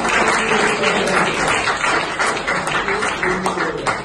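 Audience applauding: a dense patter of many hands clapping.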